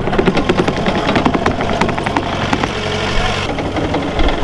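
Wacker Neuson compact track loader's diesel engine running, with rapid rattling clicks and knocks from the machine laid over the engine.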